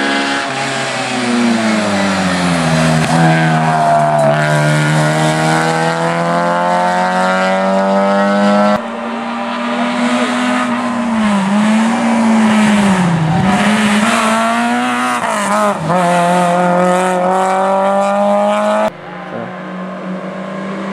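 Rally car engines running hard as the cars approach on a wet tarmac stage, pitch climbing and dropping with each gear change and lift. The sound switches abruptly twice as one car gives way to the next.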